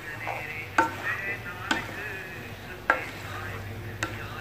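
A spoon stirring chunky vegetables in a metal kadhai, scraping through the mixture and knocking sharply against the pan four times, roughly once a second.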